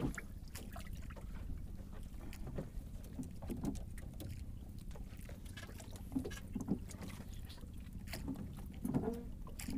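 Small knocks and rattles from hands working among the fish in a wire-mesh fish trap, over a steady low hum and rumble, a bit louder near the end.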